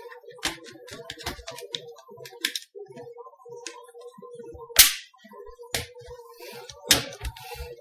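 Sharp plastic clicks and knocks from a ThinkPad X220's case and keyboard being pressed and snapped into place, the loudest about five seconds in. A faint steady tone runs underneath.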